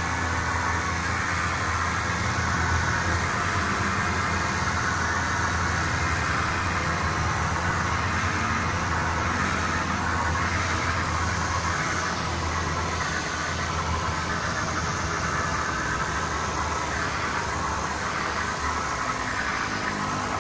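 Tornador air-powered cleaning gun blowing compressed air and cleaning solution against a car's fabric headliner in a steady hiss, with a low steady hum underneath.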